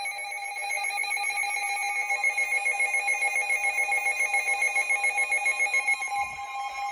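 Emergency alert attention tone: a steady, harsh alarm signal of held electronic tones, sounded to announce a warning.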